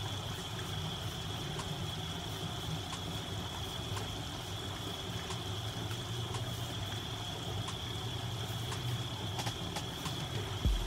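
Pot of water at a rolling boil on a gas stove, a steady bubbling.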